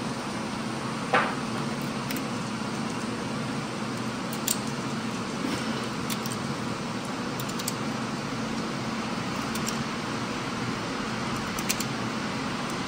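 Steady hum of an indoor range's ventilation, with a few light clicks, the loudest about a second in, as .45 ACP cartridges are handled and loaded into a pistol magazine.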